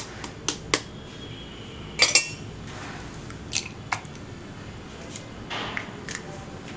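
An egg tapped against the rim of a stainless steel bowl to crack it: short sharp clinks, a couple of light taps near the start and a louder double knock about two seconds in, then a few fainter clicks.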